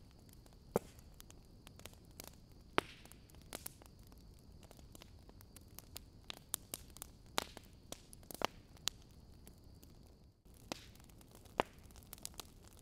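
Faint crackle and hiss: irregular sharp clicks and pops over low background noise, with a thin high-pitched whine that stops about ten seconds in.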